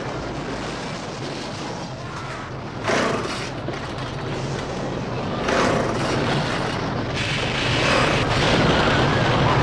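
Two-stroke chainsaw running, revved up in surges about three and six seconds in, then held at full revs for the last few seconds.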